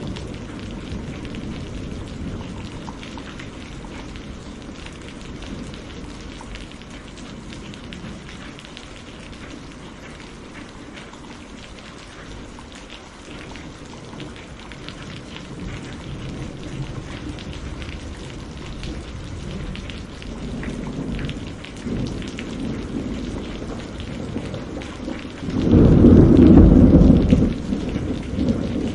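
Steady rain falling, with rolling thunder rumbling low underneath; the thunder builds from about two-thirds of the way in to a loud clap near the end.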